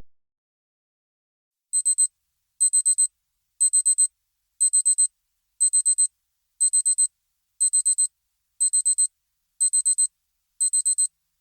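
Electronic digital alarm beeping: quick groups of four very high beeps, one group about every second, ten groups in all, starting a little under two seconds in.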